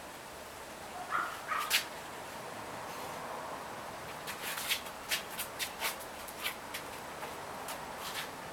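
Bernese mountain dog puppy giving a few short yips about a second in, followed a few seconds later by a scattered run of light clicks and taps.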